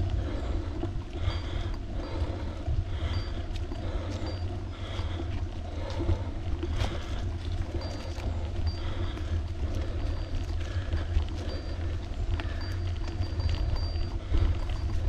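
Wind buffeting the microphone of a camera riding on a moving bicycle, a steady low rumble with rolling road noise and scattered small clicks and rattles.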